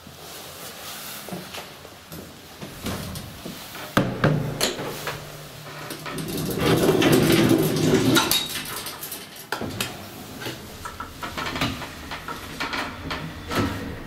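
Collapsible steel scissor gate of an old elevator car being pulled across by hand: metal bars clattering and rattling, with a string of sharp clanks, loudest about four seconds in and through a busy stretch in the middle.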